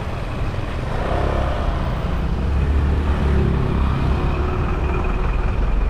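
Road traffic: car and scooter engines running in slow city traffic, heard from among the vehicles as a steady low rumble that is heaviest in the middle.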